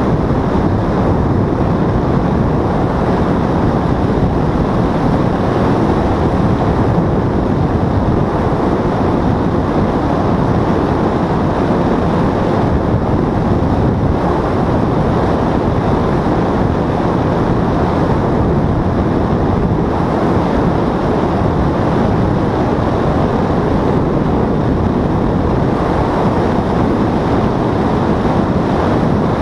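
Paramotor in flight: the backpack engine and propeller run steadily under a loud, constant wind rush on the microphone.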